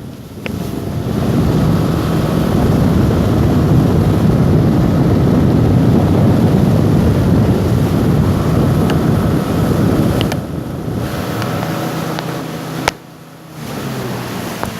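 Small motorboat engine running steadily, with wind buffeting the microphone. The sound drops out sharply for about half a second near the end.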